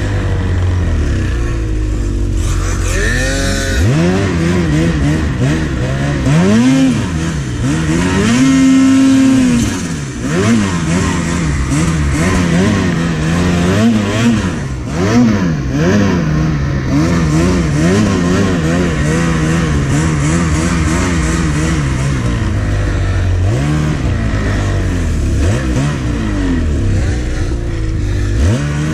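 Two-stroke mountain snowmobile engine revving up and down again and again as the throttle is worked through deep powder, with its highest, loudest rev about eight to ten seconds in.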